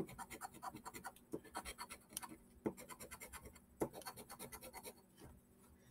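Scratch-off lottery ticket being scratched: rapid, faint scraping strokes, several a second, with short pauses about two seconds in and near the end.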